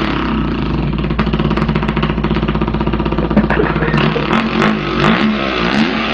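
A man imitating a dirt bike engine with his mouth and voice: a buzzy, rapidly pulsing engine note held steady, then shifting up and down in pitch like revving in the second half.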